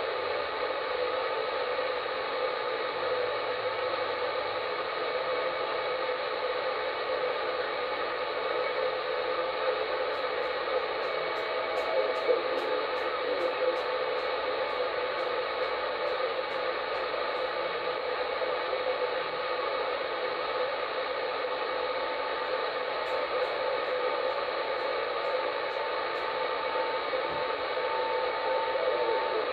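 SSB CB radio receiving on channel 38 lower sideband: its speaker gives a steady hiss of band static, with faint steady whistling tones running through it.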